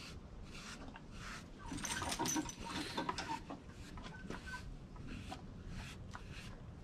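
Stiff-bristled grooming brush swept in short strokes over a horse's coat, with the grain of the hair. The brushing goes as a soft hiss about twice a second, busiest around two to three seconds in.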